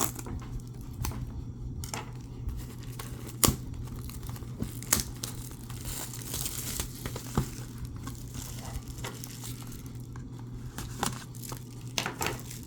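Plastic wrapping being torn open and crinkled while a cardboard card box is handled, with scattered sharp clicks and taps.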